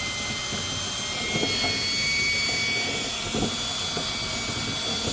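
Power drill running steadily with a high whine, spinning a rod-driven whisk tool through a lint-clogged dryer vent duct, with faint knocks of the rods in the duct.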